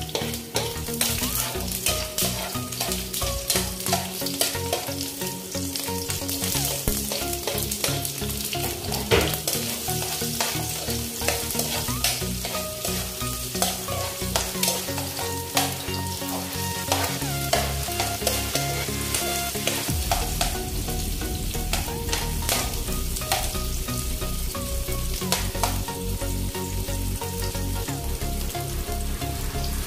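Chopped garlic and sliced onion sizzling and crackling in hot oil in a nonstick frying pan, with a metal spoon scraping the pan as they are stirred.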